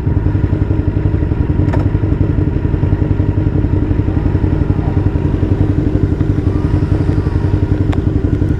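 Honda VTR's V-twin engine idling with an even, pulsing beat.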